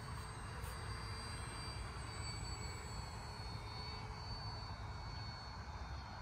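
Electric RC Corsair model airplane flying past: a thin, high motor-and-propeller whine that falls slightly in pitch, over a steady low rumble.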